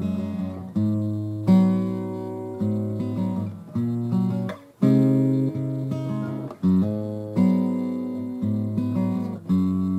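Background music: acoustic guitar chords strummed and left to ring, a new chord about every second.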